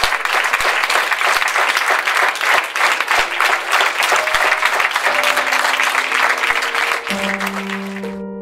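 An audience applauding. Music with long held notes fades in under the clapping about halfway through and is left on its own when the applause cuts off near the end.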